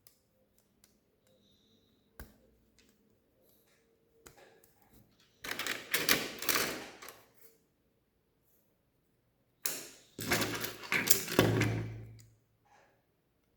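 Lego plastic pieces being handled: a few light single clicks, then two bursts of small plastic parts rattling and clattering, each about two seconds long.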